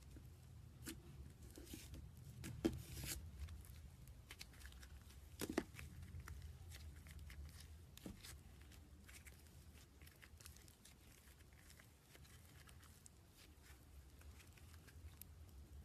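Slime being worked by hand, giving faint sticky crackles and small clicks, with two sharper snaps about two and a half and five and a half seconds in.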